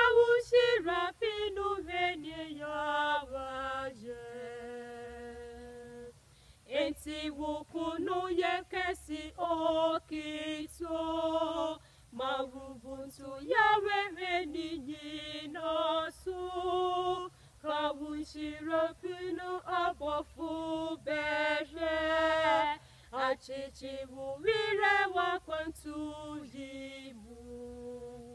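Two women singing a hymn together a cappella in Twi, unaccompanied, in sung phrases with short breath pauses between them and a long held note about four seconds in.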